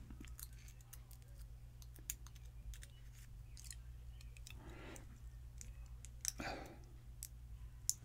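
Faint small metallic clicks and scrapes of a brass lock cylinder being gutted, a plug follower pushed through the housing to slide the plug out, with a couple of soft sliding sounds about halfway and again later, over a steady low hum.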